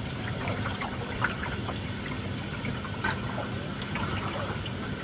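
Water splashing and trickling close by, with many small irregular splashes, as a hooked catfish is brought alongside a fishing boat.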